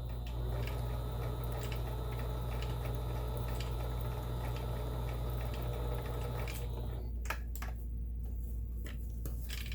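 Kenmore 17922 electronic sewing machine running, stitching steadily, then stopping about seven seconds in, followed by a few light clicks.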